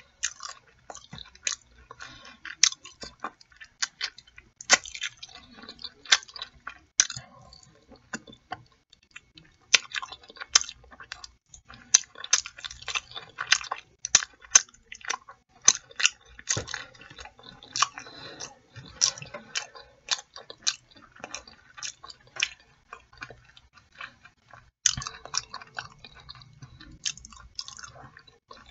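Close-up chewing of chicken in mumbo sauce with fries: a steady run of short, sharp mouth clicks at an uneven pace, with brief pauses between bites.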